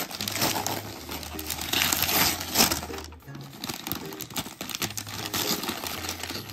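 Gift-wrapping paper being ripped and crinkled as a present is torn open by hand, in irregular rustling surges.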